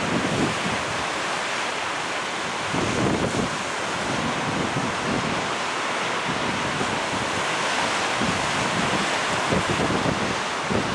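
Small ocean waves breaking and washing onto the shore, a steady surf wash, with wind rumbling on the microphone now and then.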